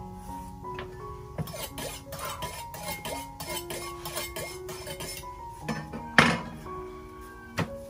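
Knife tapping and knocking on a wooden chopping board as raw meat is sliced, a run of light taps, then a sharp knock about six seconds in and another near the end, over background music.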